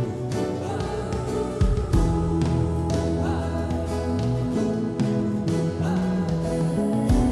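Background music: an instrumental passage of a song, between its sung lines.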